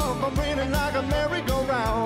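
Live band playing a song: a man singing a wavering melody over drums and guitars, with a steady drum beat about two and a half times a second.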